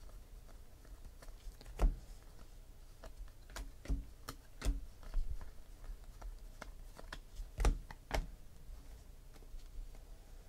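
Cardboard trading cards flipped and slid through by hand one at a time: soft flicks and scrapes of card stock, with scattered sharper clicks. The loudest come about two seconds in and near eight seconds.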